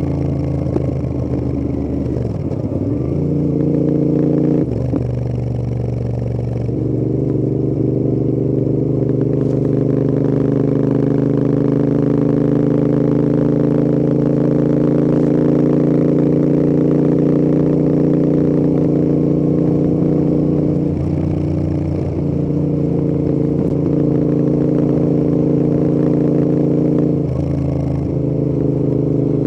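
Royal Enfield Interceptor 650's parallel-twin engine and exhaust under way, mostly holding a steady note. The note shifts abruptly several times, at about 2, 5 and 7 seconds in, again around 21 seconds, and near the end.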